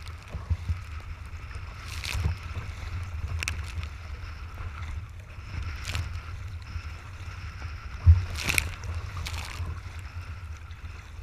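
Wind rumbling on the microphone of a camera on a kayak's bow, with chop slapping and splashing against the hull every second or two. The loudest splash comes a little after eight seconds in.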